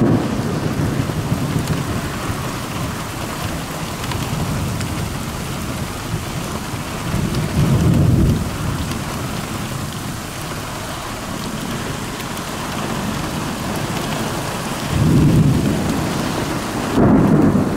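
Heavy rain falling steadily through a thunderstorm, with rolling thunder that swells about halfway through and again twice near the end.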